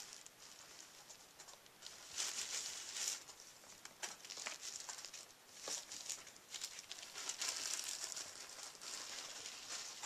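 Clear plastic sheeting crinkling and rustling in irregular bursts, with sharp crackles, as a ferret pushes against it and moves around it.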